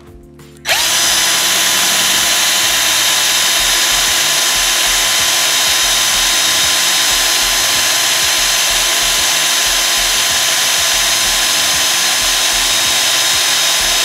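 Power drill starting up under a second in and running at a steady speed as its bit bores a hole through the thick fabric of a trucker cap.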